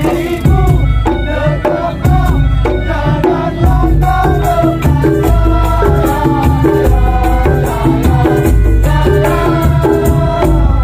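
Madurese daul (ul-daul) music: a troupe beating large cloth-covered drums in a steady rhythm, with a melody line bending in pitch above the beat.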